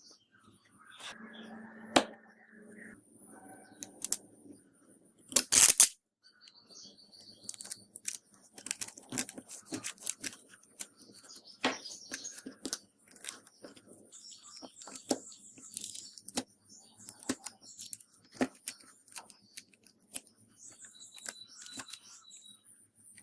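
Small repair tools clicking and tapping against a phone's parts: many short, sharp ticks at irregular intervals, with a brief, loud rasping burst about five seconds in.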